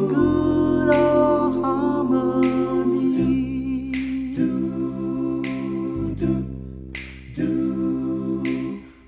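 A cappella doo-wop-style vocal group singing wordless held harmony chords over a low bass voice, with a finger snap about every second and a half.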